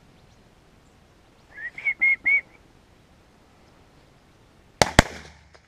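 Two shotgun shots fired a fraction of a second apart at doves in flight, with a short low rumble after them. Earlier comes a quick run of four high whistled notes.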